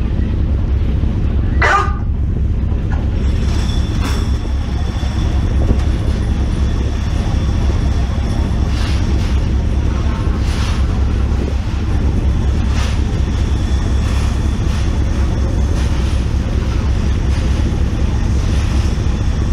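Loud, steady low rumble of a tuna purse-seine ship under way at sea: engine, wake and wind on the microphone. Scattered knocks from the working deck and a short rising sound about two seconds in come through it.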